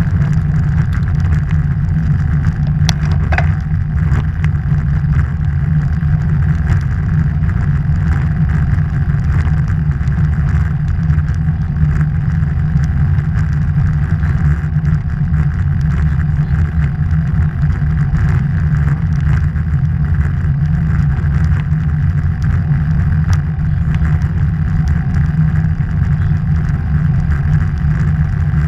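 Steady wind rumble buffeting the microphone of a camera mounted on a road bike riding at speed, with a few brief clicks about three seconds in.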